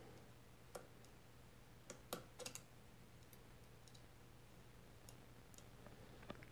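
Near silence broken by a few faint metallic clicks, bunched about two seconds in: a slim screwdriver, used as an alignment pin, tapping against the rear barrel band of a Marlin 336 lever-action rifle as it is worked into the band's screw hole.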